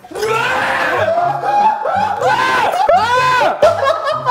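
Men yelping and laughing loudly in surprise, with pitched cries that rise and fall, loudest about three seconds in, over background music with a low, repeating beat.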